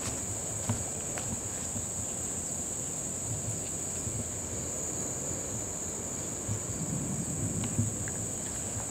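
A steady, high-pitched insect chorus that does not let up, over a low rumble of handling and wind noise on the microphone that grows toward the end, with a few faint clicks.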